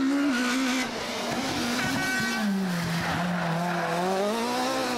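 Rally car engine running hard, its pitch dropping as the car slows into a hairpin and rising again as it powers out. A short high squeal comes about two seconds in.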